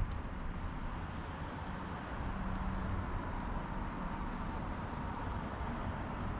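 Steady outdoor rumble with a faint constant hum, and a few faint high chirps.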